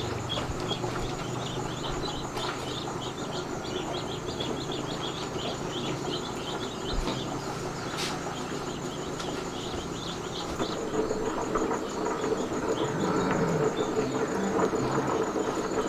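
Outdoor ambience of insects and birds: a steady high-pitched insect trill with many short, repeated chirps over it. A faint steady hum comes in about two-thirds of the way through.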